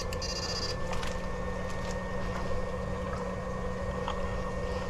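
A small motor running steadily with a constant hum over a low, uneven rumble, and a few faint clicks.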